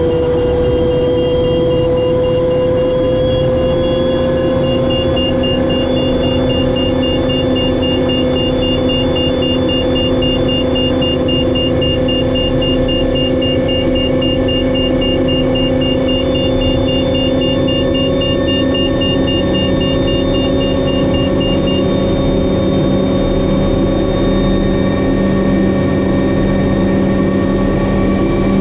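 Turbine engine of an MD520N NOTAR helicopter running with the rotor turning, heard from inside the cockpit: a steady whine over a rumble, rising slowly in pitch as it runs up. A rapid high beeping sounds along with it and stops about two-thirds of the way through.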